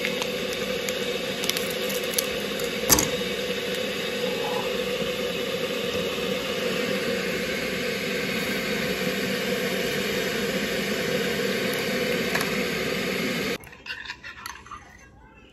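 Electric kettle heating water: a steady rushing noise that stops abruptly near the end. A few sharp crinkles and clicks of a paper instant-coffee stick being torn and handled sound over it, the loudest about three seconds in.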